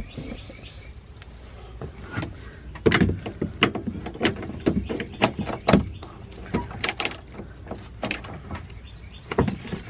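Ratchet wrench with a 17 mm socket working a seat-belt anchor bolt loose: a run of irregular metallic clicks and knocks starting about three seconds in.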